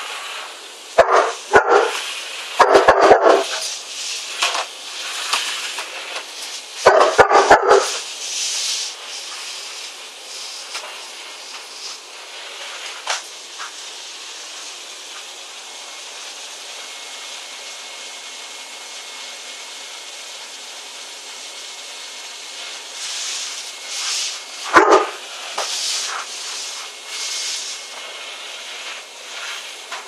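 A Greater Swiss Mountain Dog barking in short loud bursts at a vacuum cleaner that runs steadily throughout. The barks come in a cluster in the first few seconds, again around seven seconds in, and once more near the end.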